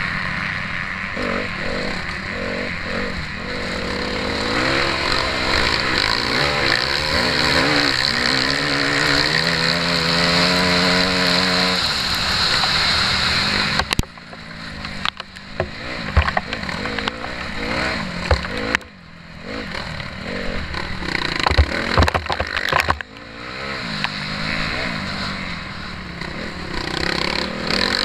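Motocross bike engine heard close up on board, revving up in repeated rising sweeps through the gears. About halfway the revs cut off suddenly, and the rest is choppy, on-and-off throttle with sharp knocks from the bike over rough ground.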